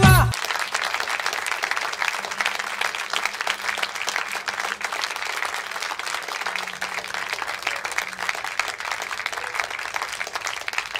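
Recorded dance music cuts off just after the start. An audience then applauds steadily.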